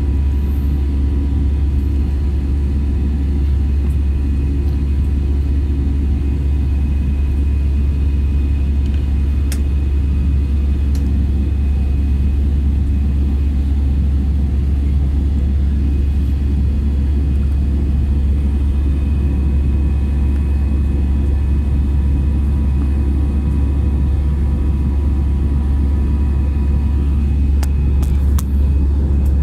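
Cabin noise inside an Airbus A320-200 descending to land: a steady roar of engines and airflow with a heavy low drone and a faint steady whine. A few brief clicks come near the end.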